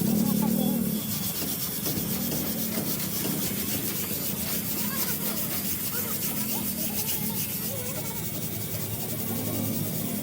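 Sanding on a car body panel: a steady rasping rub with no pauses.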